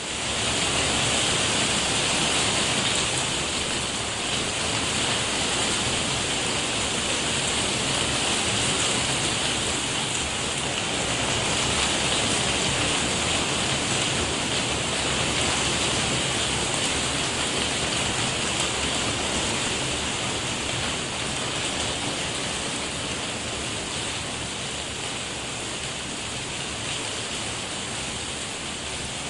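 Hail falling steadily on a roof: a dense, even patter of many small hits that holds for the whole stretch.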